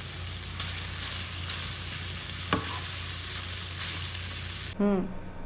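Diced lamb liver, heart and kidney with sliced onion sizzling in a frying pan while a spatula stirs them, with one sharp tap about halfway through. The sizzling cuts off suddenly near the end.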